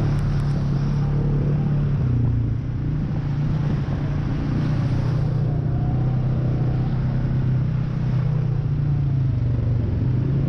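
ATV engine running steadily as the quad is ridden along a trail, its note dipping briefly a few times as the throttle eases.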